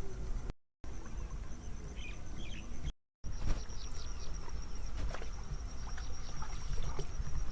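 Insect trilling: a steady, high-pitched, evenly pulsing chirr over a low outdoor rumble, with scattered short clicks and splashy sounds in the second half. The audio cuts out completely twice, briefly, near the start.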